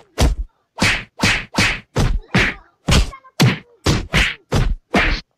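Punches landing in a scuffle between boys: a rapid series of about a dozen loud whacks, two to three a second.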